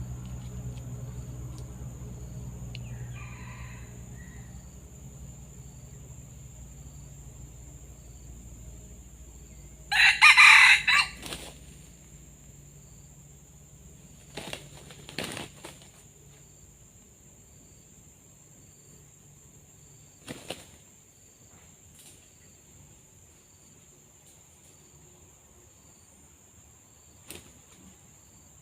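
A rooster crows once, about ten seconds in, over a faint low hum that fades away early on; a few short sharp clicks follow later.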